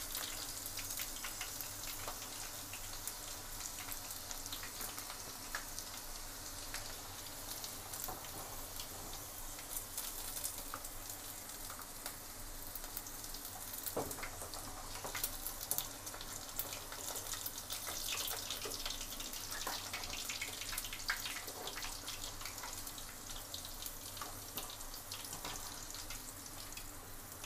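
Battered chicken pieces deep-frying in hot oil in an iron kadai: a steady sizzle with many small crackles and pops, and a few sharper clicks, one about halfway through. The pieces are fried through and are being lifted out of the oil with a steel slotted ladle.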